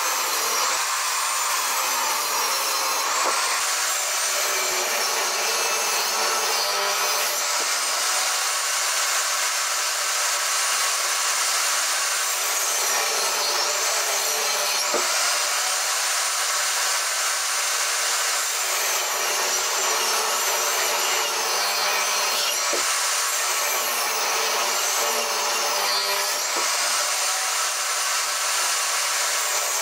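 Portable table saw running and cutting a glued-up fir and pine panel. Its high whine dips and recovers several times as the blade bites into the wood.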